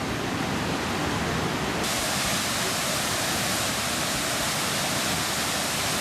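Waterfall: a steady rush of falling water that turns hissier about two seconds in.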